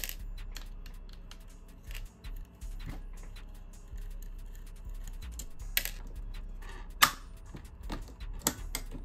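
Scattered light clicks and taps of small parts and a screwdriver being handled while an airsoft M4 gearbox is unscrewed and opened, with a few sharper clicks in the second half.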